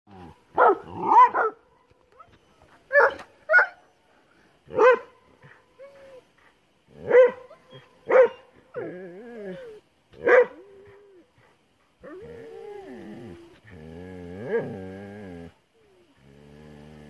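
A brindle sighthound barking, about eight short loud barks in the first ten seconds, then whining in long wavering cries.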